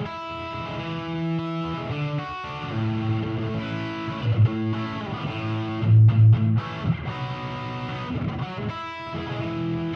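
Electric guitar played through a guitar amp's 10-inch speaker, lightly overdriven: ringing chords and single notes that change every second or so, with accented low notes about four and a half and six seconds in.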